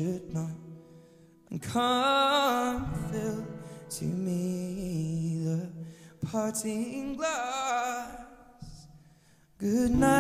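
Background music: a solo singing voice with a wavering vibrato, in three phrases separated by short pauses, over a light accompaniment.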